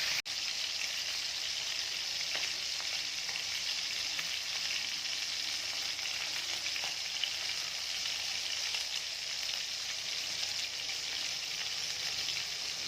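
Pieces of spice-rubbed chicken frying in olive oil in a pan, a steady sizzle with small scattered crackles.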